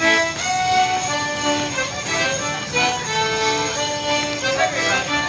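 Live folk dance tune played on fiddles for Border Morris dancing, with the jingling of the dancers' leg bells in time with their steps.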